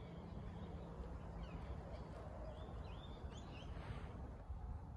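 Birds calling faintly, a few short chirps clustered about three seconds in, over a steady low background noise.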